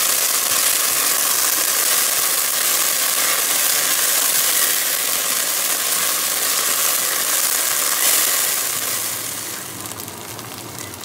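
Diced onions and minced garlic sizzling in hot olive oil in a nonstick pot, a steady frying hiss that fades somewhat near the end. This is garlic being sautéed for about a minute after the onions have turned golden.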